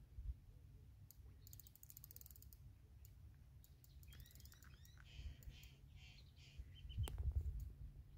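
Spinning fishing reel clicking rapidly for about a second while a hooked carp is played. Small birds chirp in the middle, and wind buffets the microphone near the end.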